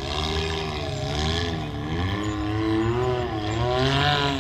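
Side-by-side UTV engine running on the trail, its pitch rising and falling again and again as the throttle is worked on and off.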